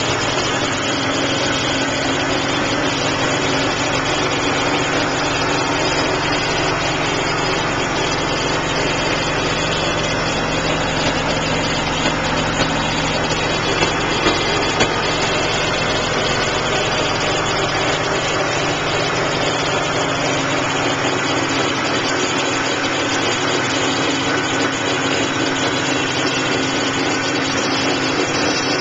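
BMW Z3 Roadster's 2.5-litre straight-six engine idling steadily, with an extra background noise that the owner cannot identify and hears loudest near the alternator.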